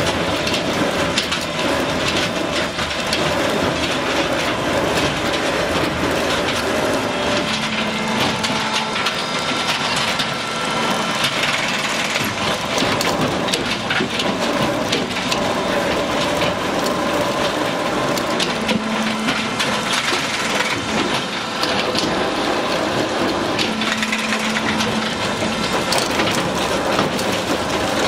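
Movable log debarking machine running: logs turn against its spiked rollers as the bark is torn off, making a continuous dense crackling and scraping of wood.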